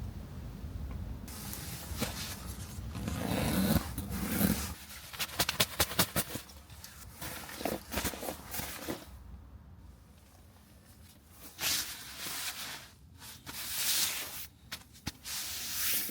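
Rustling and handling noises in bursts, with a quick run of sharp clicks partway through.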